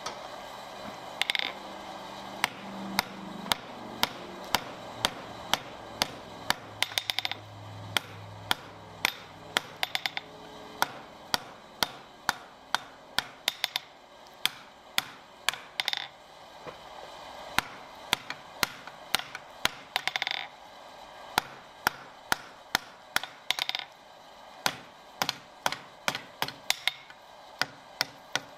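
Hand hammer striking a red-hot steel bar on an anvil in steady blows, about two a second, with now and then a brighter ringing strike.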